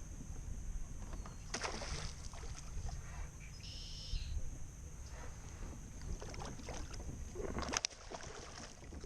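Wind rumbling on the microphone of a kayak on open water, with two short sharp knocks about one and a half seconds in and near the end, and a brief high chirp about four seconds in.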